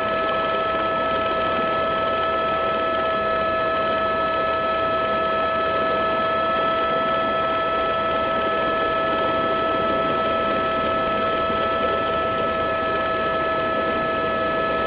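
Steady high-pitched whine with a rushing hiss underneath, constant in pitch and level, like a helicopter's turbine heard from on board.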